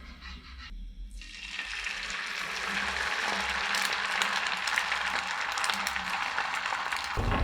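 An omelette sizzling as it fries in a hot pan: a dense crackle that starts about a second in and grows louder, then holds steady.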